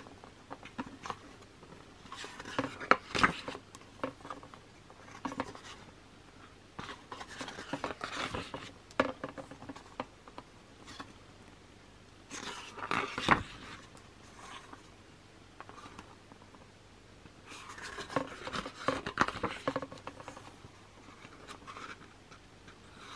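Stiff paper pages of an album photobook being turned by hand: a few rustles and flaps of paper several seconds apart, with quiet handling between.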